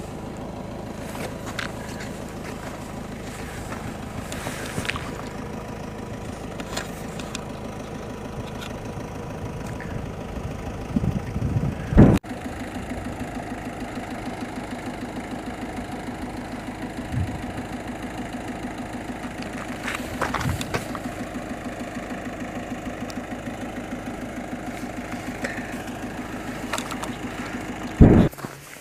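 A steady low mechanical hum like an engine running, with two loud thumps, one about twelve seconds in and one near the end.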